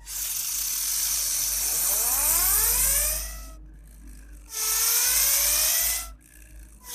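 Toy Lightning McQueen car's sound chip playing an engine-revving sound effect through its tiny speaker: a hissy, tinny rev that climbs in pitch for about three seconds, stops, then a second shorter rev burst, with a third starting near the end.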